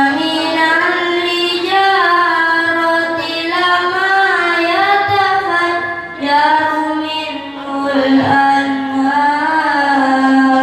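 A boy reciting the Qur'an in tartil style: a chanted recitation with long held notes that bend gently in pitch, pausing for breath about six seconds in and again near eight.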